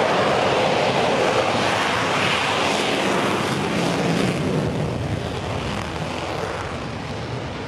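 McDonnell Douglas F-15E Strike Eagle's twin jet engines running as it taxis past, a loud steady jet rush that fades from about five seconds in.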